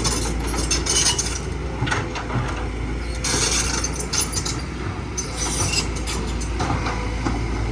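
Kobelco tracked excavator on the move: a steady low engine rumble under repeated metallic squeals and clanks from its steel tracks.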